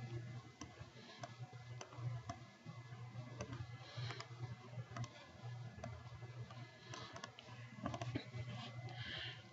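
Irregular clicks of a computer mouse, a dozen or so scattered through, over a low steady electrical hum.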